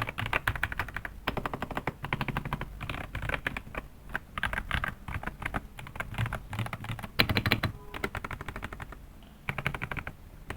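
Typing on a DAREU A98 Pro 98% mechanical keyboard: rapid runs of clacky keystrokes with short pauses, thinning out near the end. The keys sound a bit hollow and a bit loud rather than thick or creamy.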